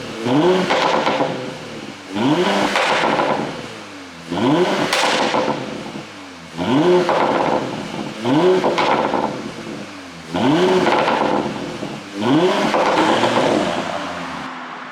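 2020 Porsche Panamera 4's twin-turbo V6 revved in about seven quick blips, one every two seconds or so, through a tuned exhaust with its flaps held fully open. Each blip rises sharply and falls back with crackling pops on the overrun.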